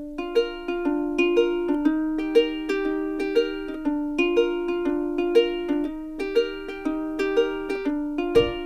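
Instrumental background music: a plucked-string melody with notes picked at a steady, regular pace.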